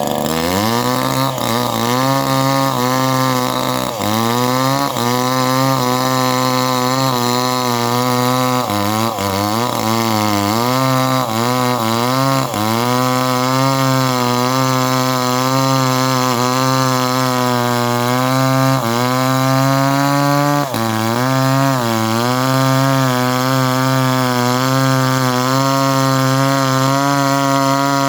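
Chainsaw engine running at high revs while cutting wood. Its pitch dips briefly several times as it bogs under load, then picks back up.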